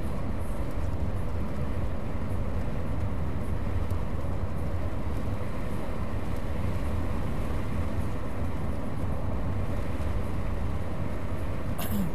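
Steady road and engine noise inside a car cruising at about 42–44 mph on cracked asphalt, mostly a low, even rumble. There is a short click near the end.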